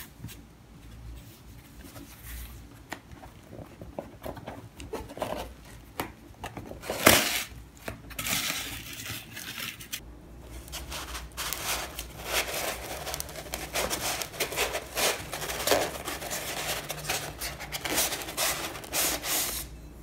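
Packaging being handled: a silky fabric wrap rustles as it is pulled off, then a cardboard box is opened and its foam insert is rubbed as a ceramic mug is freed. The handling comes as irregular rustles and scrapes, with one loud sudden rustle about seven seconds in and busier rustling through the second half.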